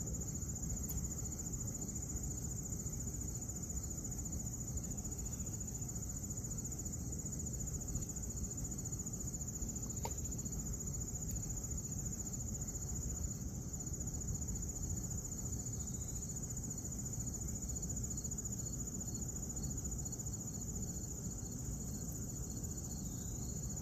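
Steady, high-pitched chorus of insects that never lets up, over a low, even rumble.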